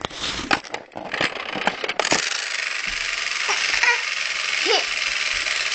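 Clicks and knocks of a pop-up toaster being loaded and set, then a steady hiss that starts about two seconds in, with a few faint short squeaky vocal sounds over it.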